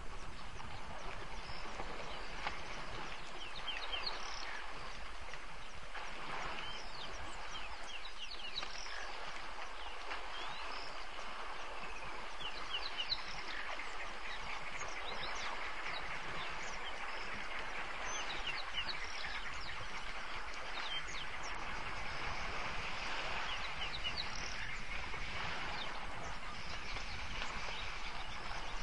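Birds calling with many short, high chirps scattered throughout, over a steady hiss and a low, constant hum.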